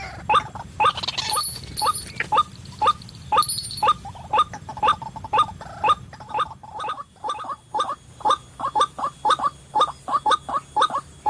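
White-breasted waterhen calling: short, loud, croaking notes repeated about twice a second, coming faster and bunched together from about seven seconds in. A few brief high chirps sound early on.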